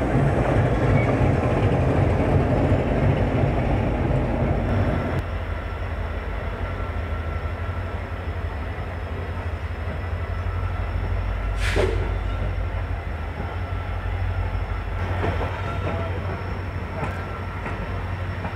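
Passenger coach of a diesel-hauled express rolling along the rails with a steady low rumble. For the first five seconds or so the engine of a WDG 4G diesel locomotive alongside is heard close by, then falls away. A brief sharp metallic sound comes about twelve seconds in.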